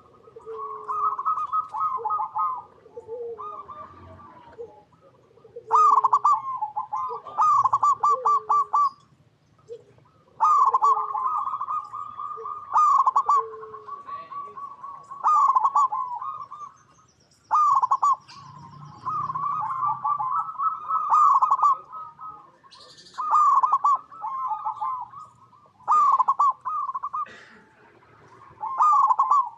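Zebra doves singing: phrase after phrase of rapid, staccato coos, each about one to two seconds long with short gaps, some phrases overlapping.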